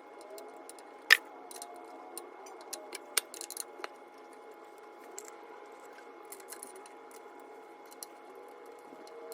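Light metallic clicks and clinks of tools and small metal parts being handled, the sharpest about a second in, over a faint steady hum.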